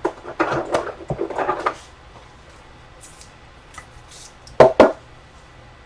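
Trading cards and their packaging being handled on a table: rustling and light clicks for about the first two seconds, then two sharp knocks in quick succession near the end.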